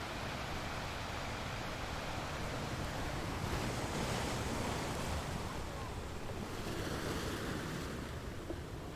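Sea waves washing onto a shore, a steady surf noise with one wave swelling up about three seconds in and drawing back near the end.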